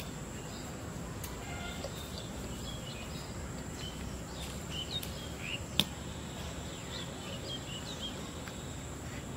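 Rural outdoor ambience: scattered short bird chirps over a steady background hiss and a constant thin high whine. A single sharp click comes about six seconds in.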